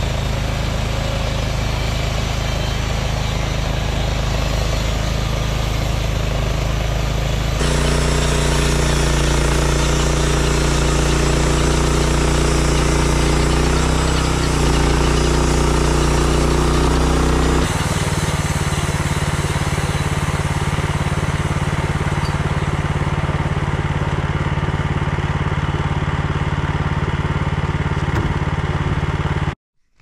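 Gas engine of a Norwood portable band sawmill running steadily while the bandsaw blade cuts along a log, the sawhead pushed by hand. The engine note changes abruptly about seven and a half seconds in and changes back about eighteen seconds in, then the sound cuts off just before the end.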